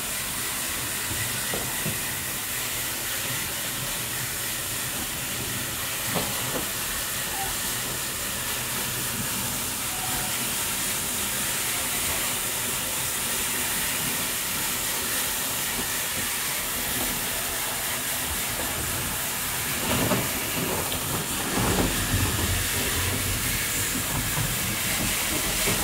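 Crushed ice rushing through a hose into a fishing boat's ice hold: a continuous hiss. Some louder knocks and rumbling come about twenty seconds in.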